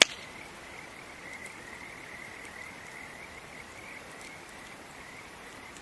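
Campfire wood giving one sharp pop right at the start, over a steady background chorus of short repeated chirps from small night animals, several a second.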